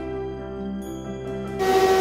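Soft background music with sustained chords. About one and a half seconds in, a louder, steady running noise cuts in, with two held tones over it. This is the sound of a corrugating machine line running.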